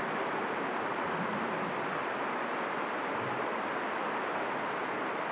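Steady rushing of a mountain river flowing under a bridge: an even, unbroken hiss of water.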